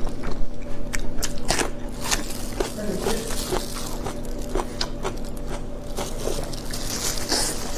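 A person biting and chewing food close to the microphone, with irregular crunchy clicks.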